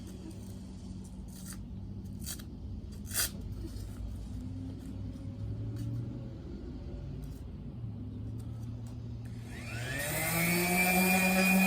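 Power sander motor starting near the end, its whine rising and then settling to a steady pitch. Before that a low hum with a few light knocks.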